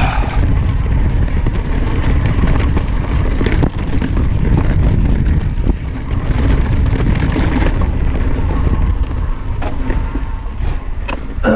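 Mountain bike riding fast down a dirt singletrack: steady wind buffeting on the camera microphone with tyre roar and frequent knocks and rattles from the bike over bumps. It eases off right at the end.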